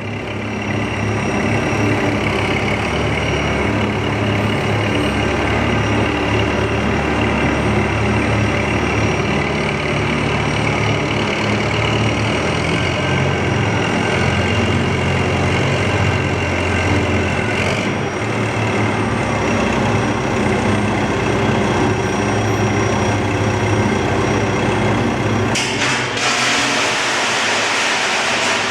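Heavy machinery of a tilting rotary aluminium furnace plant and its charging machine running steadily, a low engine-like hum with several steady tones over it. Near the end a loud rushing hiss sets in and keeps on.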